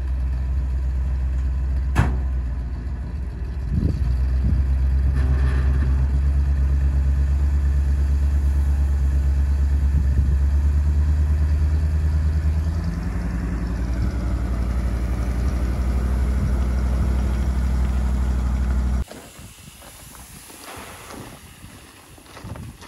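GAZ dump truck's engine running at raised revs to drive the tipper hoist as the bed lifts and the grain load slides out. The engine steps up about four seconds in, eases slightly past the middle, and cuts off abruptly near the end. It gives way to a quieter hiss of grain pouring out of the tipped bed.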